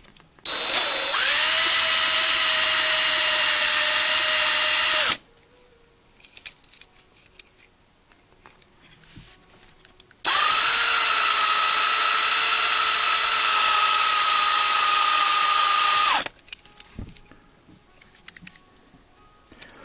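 36-volt cordless drill with a 3/16 inch bit drilling out the rivets on the base of a 1:64 diecast truck. It runs in two bursts of about five to six seconds each, each one spinning up quickly to a steady whine. Between the bursts there is a pause with small handling clicks.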